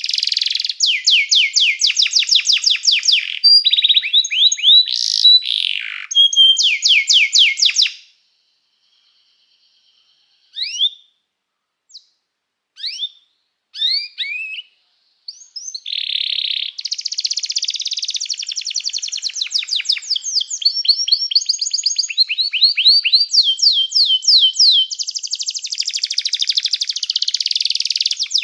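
Domestic canary singing in fast, high-pitched rolling trills. About eight seconds in the song stops, a few short separate chirps follow, and continuous trilling starts again about halfway through.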